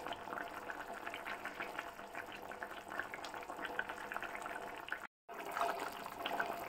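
Mourala fish and bean curry simmering in the pan, a steady fine crackle of small bubbles in the thickened gravy. The sound drops out completely for a moment about five seconds in.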